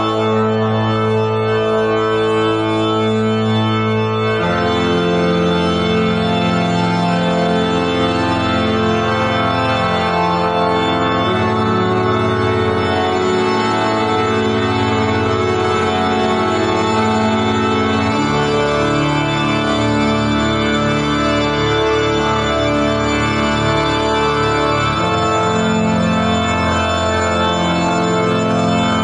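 Organ music playing slow, sustained chords that change every several seconds, with a deep bass note coming in a few seconds in.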